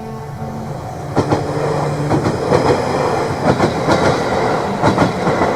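Iida Line electric train passing over a level crossing, its wheels clacking over the rail joints in quick pairs again and again, with a steady tone underneath.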